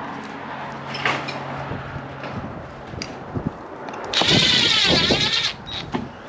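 Power drill running in one burst of about a second and a half, its motor pitch dipping and rising under load as it drives a sheet-metal screw, with light handling knocks before it.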